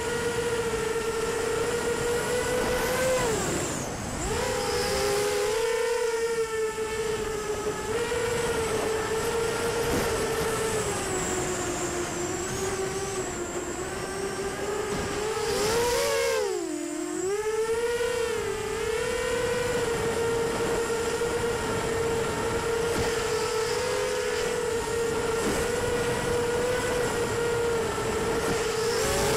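Racing quadcopter's brushless motors (Cobra 2204 2300Kv on 5-inch bullnose props) whining at high speed, heard from on board. The pitch wavers with throttle and dips briefly about four seconds in and again around sixteen to seventeen seconds, then recovers.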